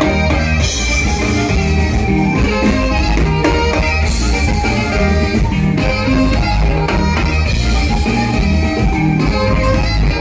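Live band music: a button accordion, an alto saxophone and guitars playing together over a strong, steady bass.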